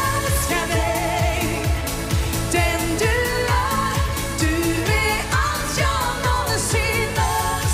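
Pop song performed live: a woman's lead vocal with wide vibrato and backing singers over a band track with a steady drum beat.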